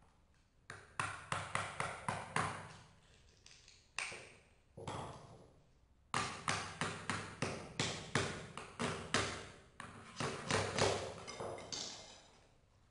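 Club hammer striking a steel chisel driven into prefinished parquet, chiselling out the top wood layer of the boards. Rapid blows, about three a second, in two long runs with a short break around the middle.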